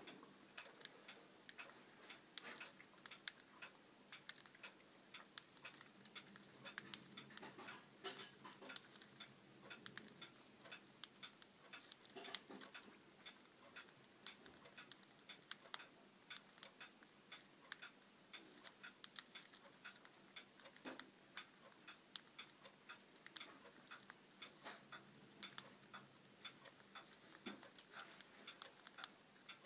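Pacific parrotlets pecking and husking millet seed: a faint, irregular run of small sharp beak clicks and cracks.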